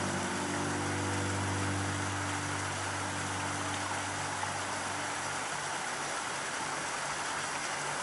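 Background music: a held low chord slowly fading away over the first few seconds, leaving a steady even hiss.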